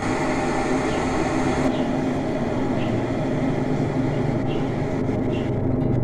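Electric kettle heating a small amount of water toward the boil: a steady rumbling noise with a few faint ticks. The kettle's newly replaced power base is passing current and the element is working.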